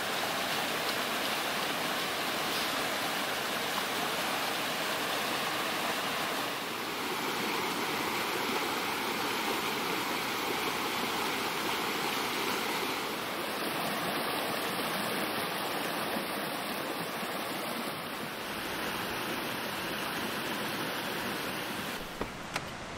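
Mountain stream rushing over rocks: a steady wash of water noise, shifting slightly in tone a couple of times.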